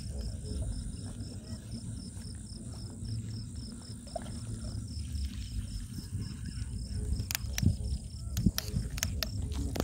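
Insect chirping in an even rhythm of about four pulses a second over a low rumble. From about seven seconds in come several sharp clicks and knocks.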